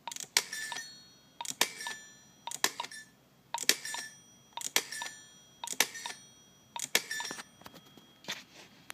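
Rotary dial of an Automatic Electric candlestick telephone being pulled round and let spin back seven times, about one digit a second, each return a quick run of clicks as a number is dialed. Two lighter clicks follow near the end.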